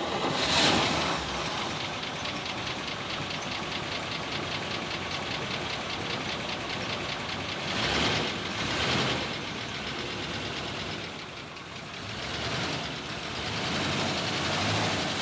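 Engine of an old painted bus, a former US school bus, idling steadily with an even pulse, rising briefly twice about eight and nine seconds in.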